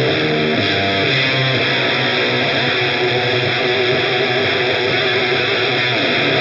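Electric guitar played through the Audio Disruption Devices Transformations fuzz pedal: distorted, sustained notes with several sliding pitch changes.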